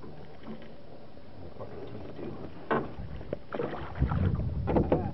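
A walleye splashing at the surface beside a small boat as it is let go into the lake. There is one sharp splash about two and a half seconds in, then a quick run of splashes near the end.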